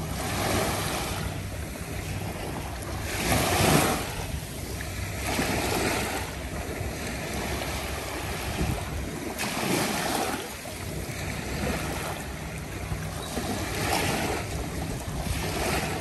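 Small sea waves breaking and washing up on the shore, a surge every two to four seconds with the loudest about four seconds in, over a steady rumble of wind on the microphone.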